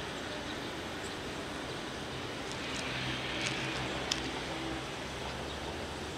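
Distant electric commuter train running along the line: a faint steady rumble, with a low hum that comes up in the middle, over open-air background noise.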